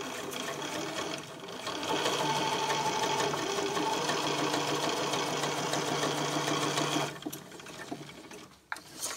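Computerised sewing machine stitching a quarter-inch seam through pieced quilt fabric, running steadily, picking up about two seconds in and stopping abruptly about seven seconds in. A couple of small clicks follow near the end.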